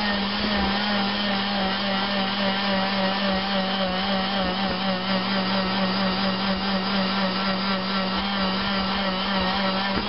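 Dremel rotary tool running steadily with a 220-grit wheel grinding inside a cast-aluminium intake manifold runner, smoothing down the casting ridges. Its whine wavers slightly in pitch as the wheel works against the metal.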